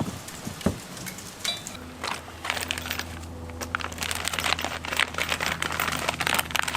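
Scraping, crinkling and light clattering as a steel trailer hitch and its mounting bolts are handled and fitted up against the car's underside and plastic bumper, growing busier after a couple of seconds, over a steady low hum.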